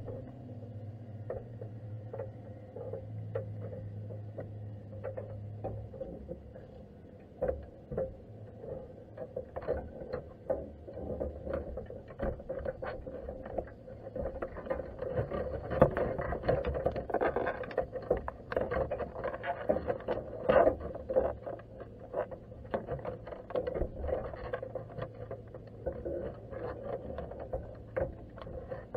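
Underwater sound through a camera sitting in a crab pot on the seabed: muffled, irregular clicks and knocks, densest in the middle, over a low steady hum that stops about six seconds in.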